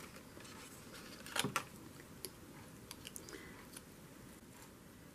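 Quiet handling of scrapbook paper: a few short crisp clicks and rustles, the loudest pair about a second and a half in.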